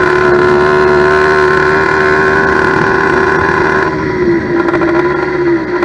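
Steel-sleeve two-stroke motorized bicycle engine (a 100cc-class kit, about 90cc, on an 80cc bottom end) running steadily on its first start, with the carburettor not yet adjusted. About four seconds in, it drops back a little in speed and loudness.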